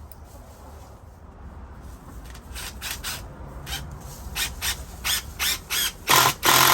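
Power drill driving a screw at an angle into a wooden 4x4 post: short trigger spurts that grow louder, then one longer run of about a second near the end.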